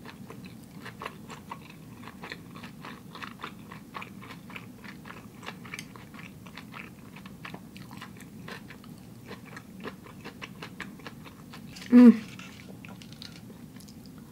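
Close-up chewing of sushi rolls, with many small wet mouth clicks and soft crunches throughout. About twelve seconds in comes one brief, much louder voice-like sound with a falling pitch.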